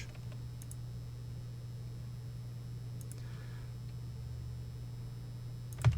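Steady low electrical hum of room tone with a few faint computer mouse clicks, the sharpest one near the end.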